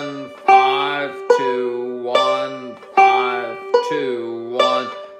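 Five-string banjo picked with fingerpicks, playing a slow bluegrass lick with slides: about six strong picked attacks, roughly one every 0.8 s, each left to ring, some bending up into pitch.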